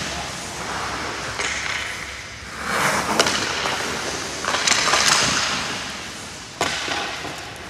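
Hockey skate blades carving and scraping across rink ice in several swishes, with a sharp clack of stick on puck about three seconds in and another near the end.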